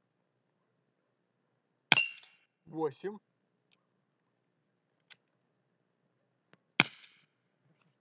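Two pistol shots about five seconds apart, each a sharp crack. The first is followed by a brief metallic ring.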